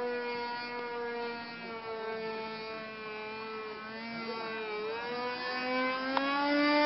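Radio-controlled model airplane's motor droning as it flies overhead. Its pitch sags slowly, dips briefly a little before five seconds in, then climbs and grows louder near the end.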